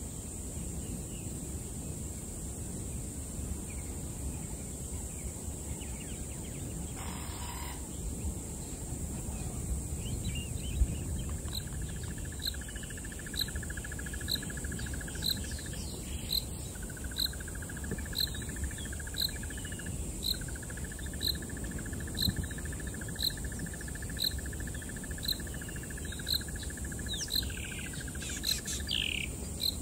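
Ambient bush sounds of insects and birds: a steady high insect drone, a pulsed insect trill joining after about twelve seconds, and a short high note repeating about once a second. A few quick chirping bird calls come near the end, over a low wind rumble.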